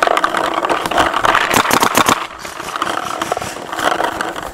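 Paintball player running across grass: quick footsteps and gear rattling against the body, busiest in the first two seconds, then easing.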